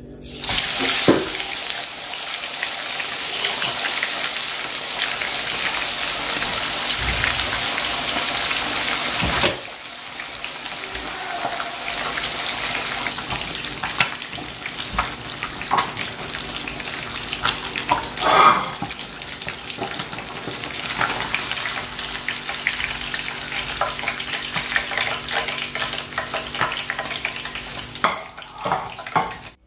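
Whole egg-coated tilapia deep-frying in hot oil in a pan, with a loud steady sizzle starting about a second in as the fish goes into the oil. About nine seconds in it drops abruptly to a quieter sizzle with scattered crackles and pops.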